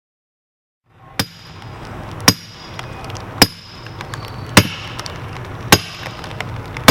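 Sledgehammer driving a steel splitting wedge into a log: six sharp metallic strikes about a second apart, each ringing briefly, over a steady low hum.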